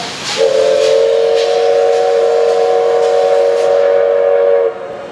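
Steam locomotive's whistle sounding one long blast of several tones together, held for about four seconds and cut off sharply.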